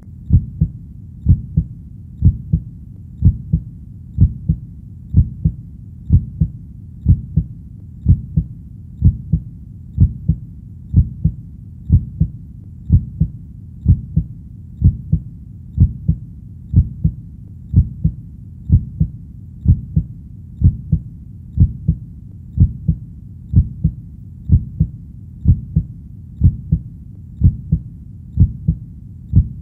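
Heartbeat sound: steady lub-dub double thumps, about one beat a second, low and even over a faint steady background.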